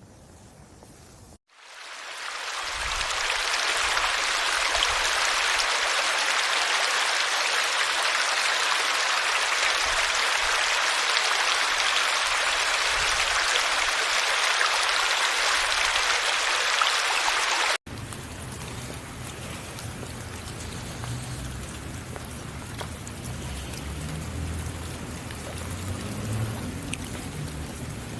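Steady heavy rain, a dense even hiss that swells in over the first few seconds and cuts off abruptly a little past halfway. A much quieter outdoor ambience follows.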